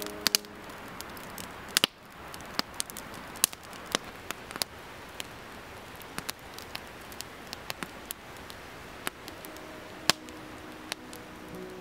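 Wood campfire crackling: sharp, irregular pops over a steady hiss.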